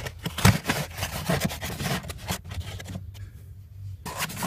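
Hands rubbing and scraping a foam under-dash dust cover against the surrounding trim as it is fitted back: a run of irregular scratchy rubs that stops for about a second near the end, then starts again.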